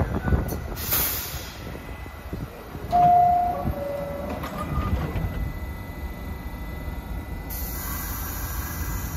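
New York City Subway train at the station platform, its low rumble running throughout. About three seconds in comes the two-note falling door-closing chime, and a hiss of air starts near the end.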